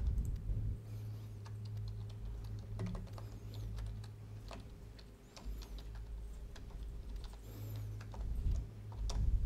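Typing on a computer keyboard: irregular key clicks as a short command is typed, over a low hum.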